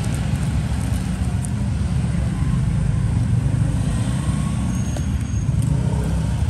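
Steady low rumble of road traffic, with no pauses or sharp events.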